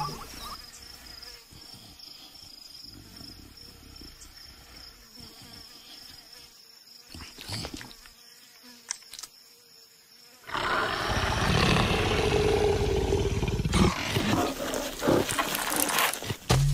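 Cartoon big-cat sound effects for an animated leopard. A faint, steady, high insect-like whine comes first. About ten seconds in, loud rough growling starts suddenly and runs on, with a few sharp knocks near the end.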